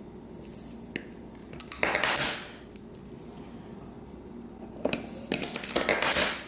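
Small metallic clinks, a short ringing ping and scraping as bare copper wire and side-cutting pliers are handled, the wire being snipped and bent into a ring, with scraping stretches around two seconds and again from about five seconds on.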